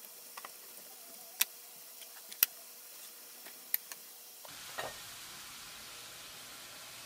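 Stir-fry vegetables sizzling faintly in a nonstick frying pan, with about four sharp clicks of a wooden spatula against the pan.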